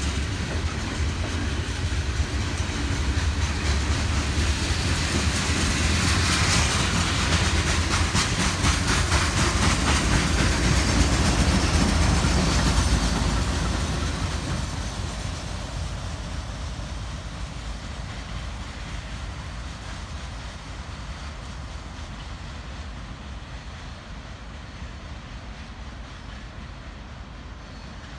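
Loaded freight train of coke hopper cars passing close by, with steel wheels clicking over the rail joints and a heavy low rumble. A BNSF diesel locomotive at the rear of the train goes by about halfway through, when the sound is loudest. After that the noise fades steadily as the train moves away.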